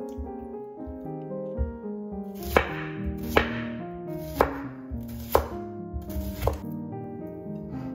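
Chef's knife slicing a red onion into rings, the blade knocking on a wooden cutting board about five times, roughly a second apart. Piano music plays underneath.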